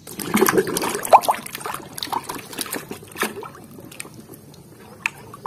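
Water splashing and sloshing in a tub of soapy water as a hand dunks and scrubs a toy gorilla head in it. The splashing is busiest in the first couple of seconds and dies down after about three seconds.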